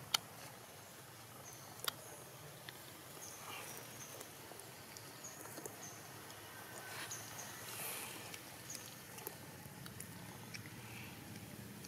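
Quiet outdoor ambience with scattered short, high chirps and two sharp clicks, one just at the start and one about two seconds in.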